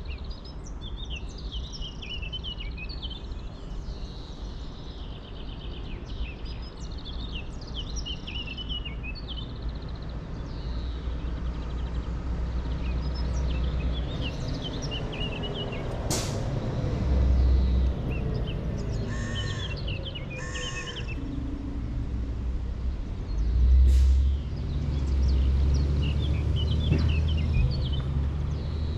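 Small songbirds chirping and twittering on and off over a steady low outdoor rumble that swells a few times, with two sharp clicks in the second half and a faint hum slowly falling in pitch midway.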